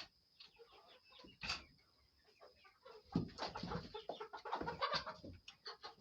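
Chickens clucking: a flurry of short, quick calls that grows busier about halfway through.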